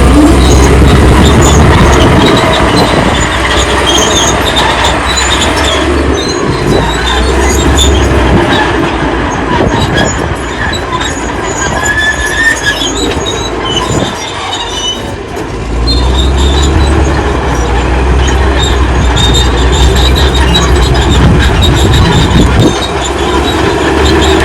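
Old crawler bulldozer working: the engine running under load, with the steel tracks squealing and clanking. The engine's low note drops back around the middle and comes back strongly about sixteen seconds in.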